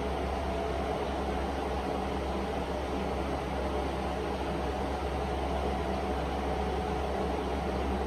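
Steady machine hum and hiss, with a strong low hum and a few faint steady tones above it; no distinct events.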